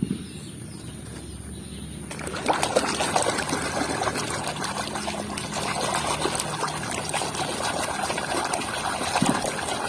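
Water running and spattering while muddy plastic toy figures are washed, starting about two seconds in, with many small clicks throughout.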